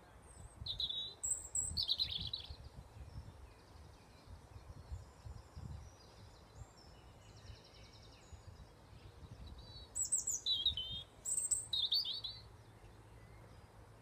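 Wild songbirds singing in a tree: two loud bursts of quick, high notes, one about half a second in and one about ten seconds in, with fainter song between them, over a low background rumble.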